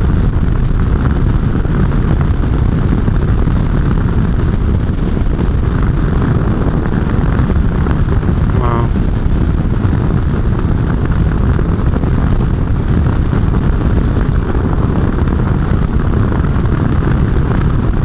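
Motorcycle riding at speed: a Kawasaki Versys 650 parallel-twin running steadily under loud wind buffeting on the helmet microphone.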